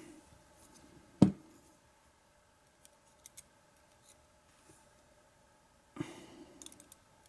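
Steel tweezers clicking against small lock pins as driver pins are picked out of a padlock cylinder: one sharp click about a second in, a few faint ticks, then another click with brief handling noise near the end.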